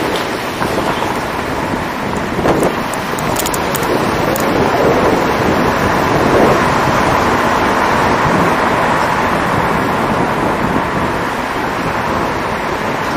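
Steady road noise of a car driving along a city street, picked up by a camera mounted on the outside of the car.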